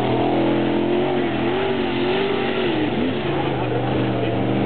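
Off-road race pickup truck's engine revving hard, its pitch rising and falling with the throttle, over a steady rushing noise.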